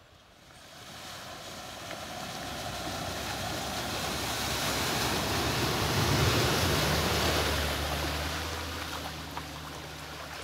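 A car driving through a shallow river ford, its tyres churning up water in a rush that builds, is loudest about halfway through, then fades. The low hum of its engine sits underneath as it passes.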